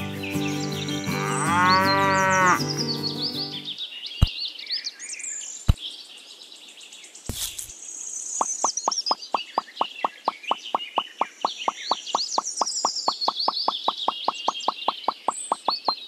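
A cow moos once, a long wavering call, over light background music and chirping birds. In the second half a fast, even clicking starts, about five clicks a second.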